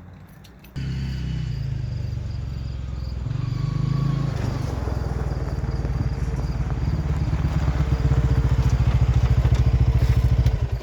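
A motor vehicle's engine running under way, starting abruptly and picking up about three seconds in, with a fast even pulse, then cutting off suddenly.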